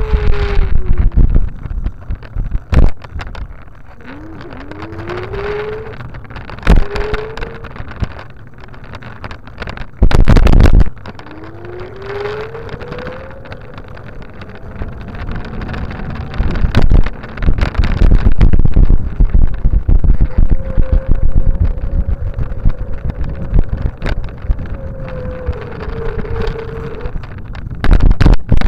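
Wind rushing over the microphone of a camera riding along a paved path, with loud knocks and bursts from jolts, the longest about ten seconds in. A faint whine rises in pitch several times.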